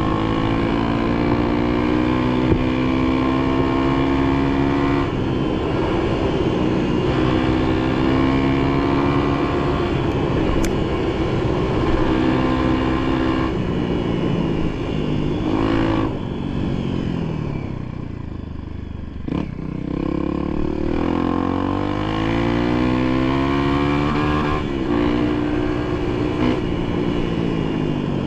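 A vehicle engine working under load, its pitch rising and falling with the throttle. It eases off about two thirds of the way through, then revs back up.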